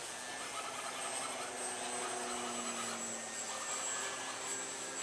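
Electric RC model planes (E-flite T-28 Trojan, 1.1 m) flying: brushless motors and propellers humming steadily, with the pitch dipping a little in the middle as a plane passes, over a hiss of wind.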